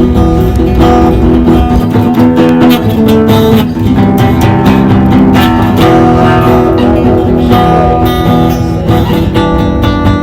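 Instrumental music led by guitar, plucked and strummed, with a bass line.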